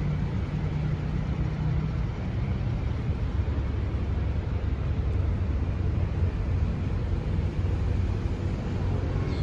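A steady low rumble, such as nearby vehicle traffic or an engine running.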